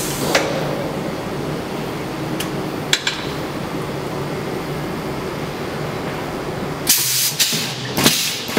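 Automatic spiral-wire fan grill welding machine running with a steady hum and a few sharp metallic clicks. From about seven seconds in, its welding heads weld the wire grill with several loud hissing crackles.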